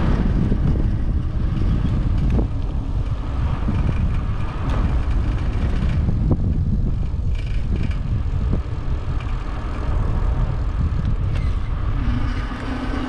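Steady low wind rumble on the microphone while riding a bicycle along a paved road, with a few brief sharp knocks. A steady low hum comes in near the end.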